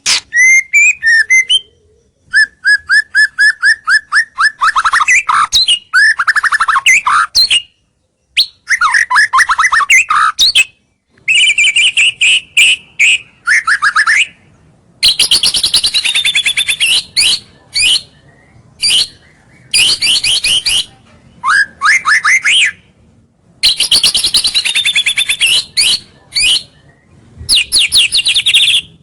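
White-rumped shama (murai batu) singing loudly in short, varied phrases: rapid runs of repeated notes, rattling trills and downslurred whistles, with brief pauses between phrases.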